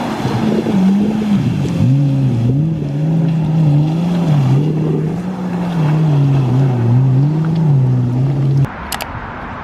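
Watercraft engine running over the water, its pitch rising and falling as the throttle changes, with wind and water noise; it cuts off abruptly near the end.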